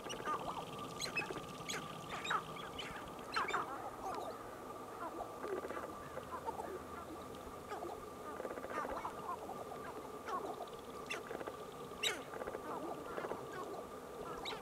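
Displaying male sharp-tailed grouse on a lek, giving many short clucking, cackling calls in an irregular run, over a steady tone. The sharpest call comes near the end.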